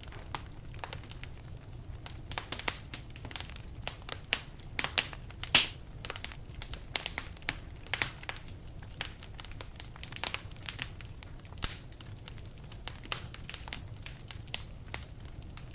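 Wood fire crackling in a fireplace: irregular sharp pops and snaps, several a second, with one louder pop about five and a half seconds in.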